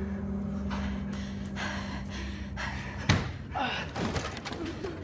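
A man gasping and breathing hard over a low steady drone. About three seconds in comes a heavy thud, then knocking and rattling as a wooden barn door is tugged at.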